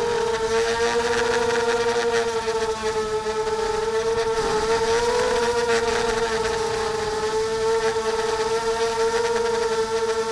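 Ghost 300 FPV multirotor drone's electric motors and propellers whining steadily in flight, the pitch wavering a little as the throttle shifts.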